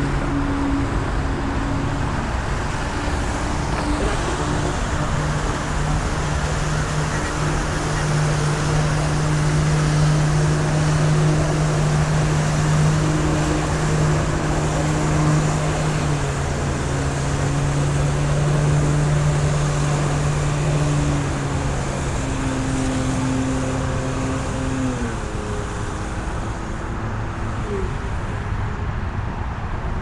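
Jet ski engine running hard to pump water up the hose of a water jet pack, under the hiss and splash of the water jets. Its pitch shifts about halfway through and glides down near the end.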